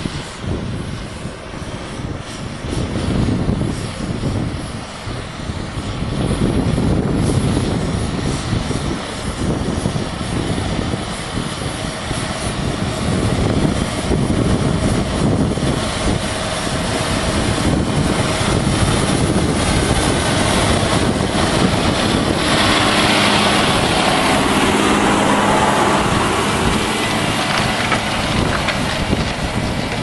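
John Deere 6630 tractor's diesel engine working under load while pulling a plough through the soil. It gets louder about six seconds in, and its engine note comes through more clearly toward the end as the tractor comes up close.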